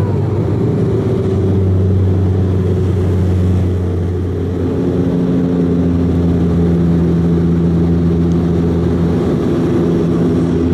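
Cabin drone of a De Havilland Dash 8 Q400's turboprop engines and propellers during the climb after takeoff, heard inside the passenger cabin. It is steady and loud, and its tones shift slightly about four and a half seconds in.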